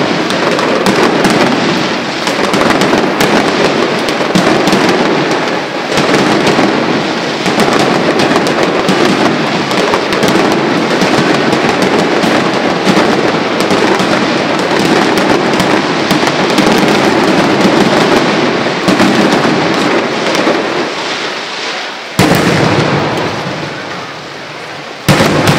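Mascletà firecrackers going off in a dense, continuous rattle of rapid explosions, loud for about twenty seconds, then thinning out. Two single loud bangs follow near the end.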